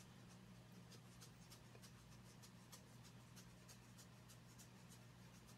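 Near silence: room tone with a steady low hum and faint, irregular light ticks.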